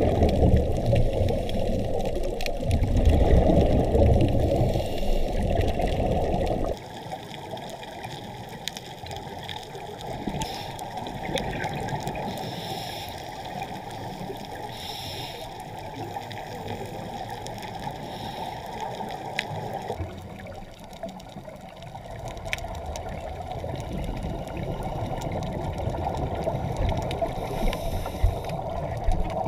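Muffled underwater noise picked up by a diving camera, a steady watery rush. It changes suddenly twice, about seven seconds in and again about twenty seconds in, becoming quieter after the first change.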